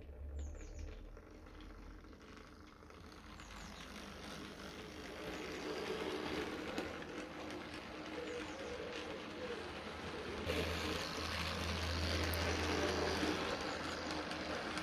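00 gauge model train running on its track: the tank locomotive's motor whirring and the wheels rattling on the rails. It grows steadily louder as the train passes close by, with a stronger low hum from about two-thirds of the way in.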